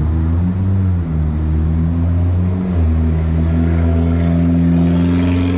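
A motor vehicle engine running steadily with a low hum, its pitch shifting slightly a couple of times.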